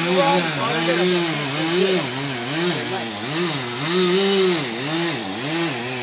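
Two-stroke chainsaw cutting into a tree trunk, its engine pitch dipping and recovering again and again as the chain bogs under load and revs back up.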